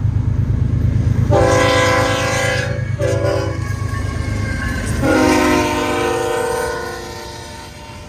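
BNSF diesel freight locomotive passing close by with its engine running loud, sounding its multi-note air horn: a long blast, a short one, then a final long one, the end of the standard grade-crossing signal. The engine drone fades about halfway through as the locomotive moves on.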